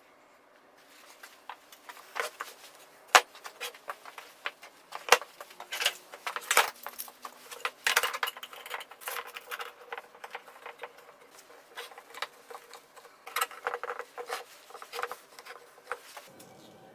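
Metal F-clamps clattering, clicking and knocking as they are handled, slid along their bars and tightened onto a stack of glued plywood boards, with wood knocking on wood and metal. The sharpest knocks come about 3 and 5 seconds in.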